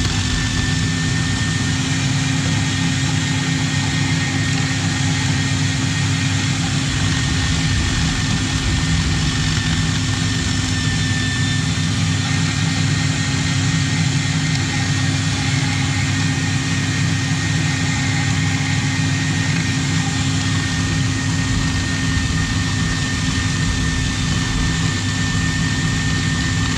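Electric kitchen machine running its rotating drum grater attachment, grating nuts: a loud, steady motor hum with a thin constant whine above it.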